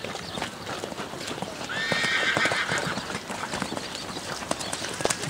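Hoofbeats of a grey pony cantering on wet sand, with a horse's whinny about two seconds in that lasts a little over a second.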